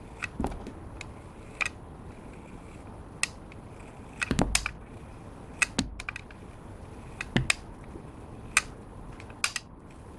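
Clear slime being worked by hand, giving irregular sharp pops and clicks, a few in quick clusters.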